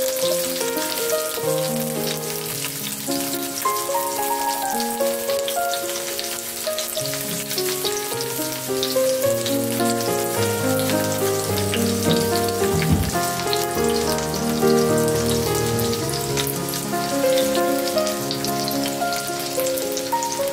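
Plum slices sizzling in hot oil in a nonstick frying pan: a steady fine crackle, with background music playing a melody throughout.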